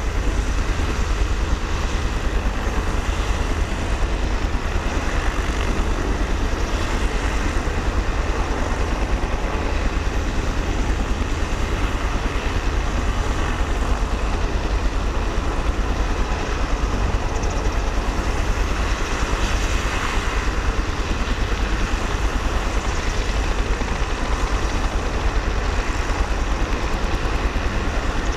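Steady engine noise: a low rumble with a fast, even pulse that holds unchanged, over a background hiss.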